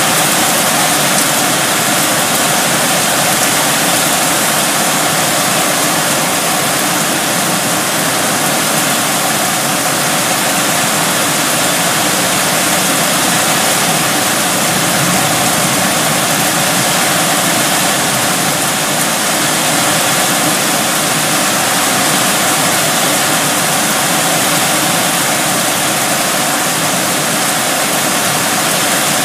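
Heavy rain pouring down in a windy rainstorm: a loud, steady hiss of a downpour.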